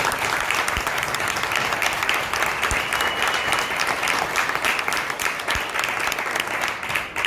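Audience applause: many hands clapping at once in a dense, steady patter that fades away near the end.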